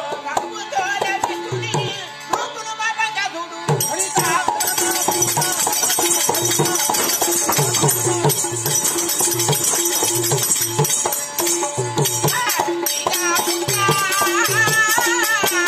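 Live folk-theatre accompaniment: a hand drum played in a steady rhythm under sustained harmonium notes, with a constant metallic jingling over it. A voice starts singing near the end.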